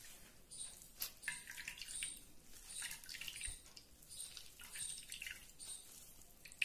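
Liquid dripping and trickling into a steel bowl as a cloth-lined strainer of wet ground poppy-seed and almond paste is squeezed from below. It comes faintly, in repeated short spurts.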